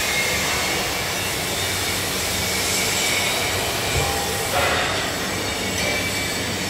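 Loud, steady workshop machinery noise with faint high whines. A dull thump about four seconds in, as a foot steps onto a stacked cast manhole cover.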